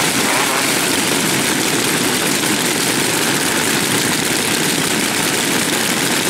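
Many Dolmar 166 two-stroke chainsaws idling together, their engines merging into one steady, dense engine sound with no single saw standing out.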